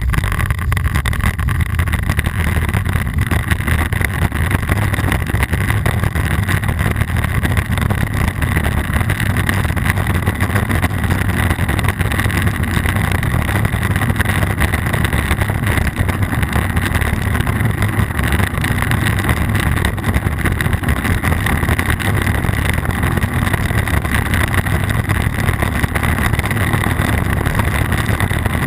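Steady, loud rush of wind buffeting an action camera's microphone, with the deep rumble of riding down a rough downhill trail.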